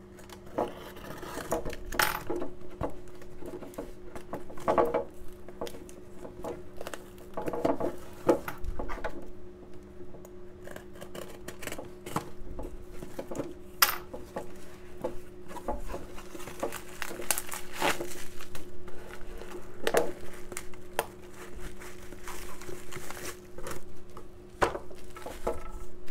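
A cardboard shipping box being unpacked by hand: packing tape slit with a scalpel and peeled away, cardboard flaps pulled open and bubble wrap handled. The result is irregular scraping, tearing and crinkling with scattered sharp clicks.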